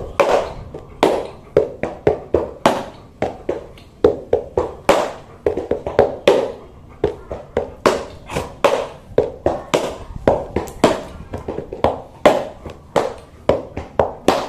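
Quick rhythmic pats and slaps of a hand and a sneaker on a large dog's body, several a second in an uneven, drum-like pattern.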